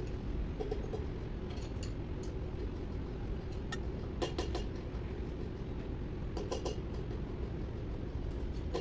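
Short runs of quick metallic clicks from a hand wrench being worked on the valve gear of a Komatsu SAA12V140 diesel engine, twice, about four and six and a half seconds in, over steady workshop background noise.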